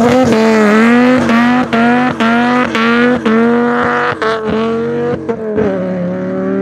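Dodge Viper V10 engine running hard at high revs, its note held high and broken by brief cuts about twice a second.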